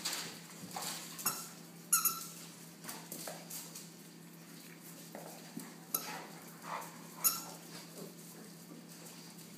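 American pit bull puppies playing with their mother, giving short high yips and squeaks now and then. A few sharp clicks and scuffs come from the hard floor.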